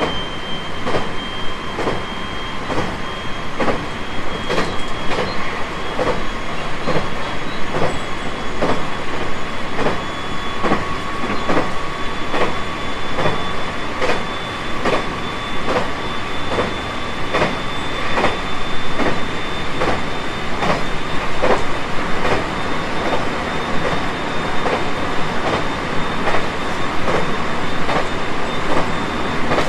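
Onboard running sound of a JR West 223 series 5000 electric train at speed: a steady rhythmic clickety-clack of the wheels over rail joints, about two a second, over the rumble of the running train. A thin high whine slowly rises in pitch.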